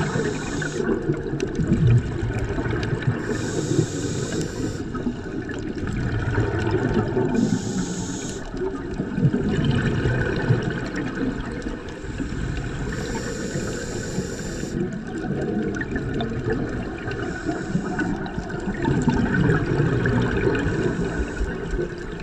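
Scuba regulator breathing underwater: five breaths, each a short hiss on the inhale followed by a bubbling rumble of exhaled air.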